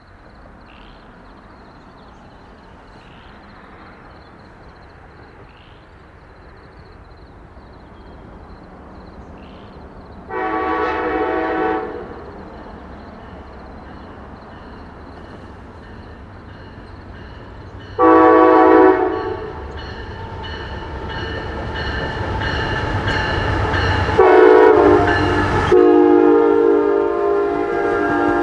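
A train approaching and sounding its multi-note air horn three times: two short blasts about seven seconds apart, then a longer held blast near the end, over a rail rumble that grows louder as the train nears.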